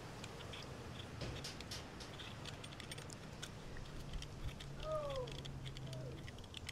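Vegetable peeler scraping the skin off a raw tomatillo: faint, quick little scrapes and clicks. Two brief falling squeaks are heard about five and six seconds in.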